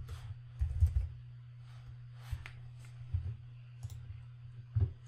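Computer keyboard typing and mouse clicks: a scattering of short, irregular key taps and clicks.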